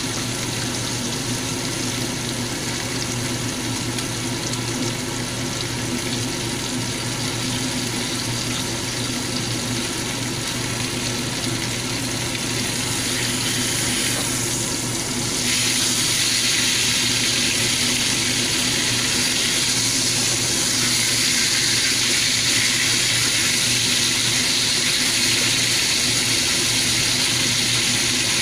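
Beef steaks frying in butter in a pan, a steady sizzle that gets louder and brighter about halfway through, when the steaks are turned over.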